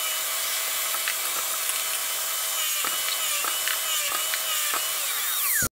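Portable table saw running, its blade cutting a groove along wooden boards fed against the fence. The motor's whine dips briefly several times as the blade takes load. It drops quickly in pitch and stops abruptly near the end.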